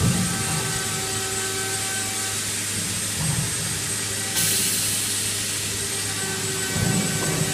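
CNC wood router running, a steady machine whine with a few steady tones over a noisy hum. About four seconds in, a louder high hiss sets in and holds.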